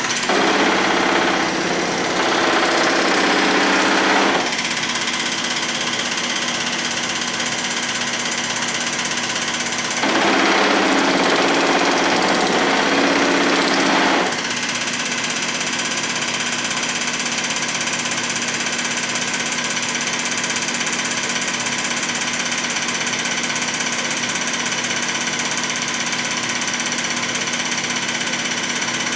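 Reciprocating power hammer (P-Max, Pullmax style) running steadily with its dies chattering at high speed. Twice, for about four seconds each (at the start and again about ten seconds in), the sound grows louder and harsher as the dies work a sheet-metal panel.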